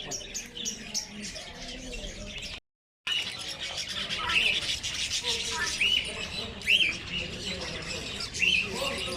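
Many caged birds chirping and calling together in a dense chorus, with loud short squawking calls repeating in the second half. The sound cuts out completely for a moment about a third of the way in.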